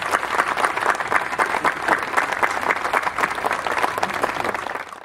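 Audience applauding, many hands clapping densely and steadily; it fades out at the very end.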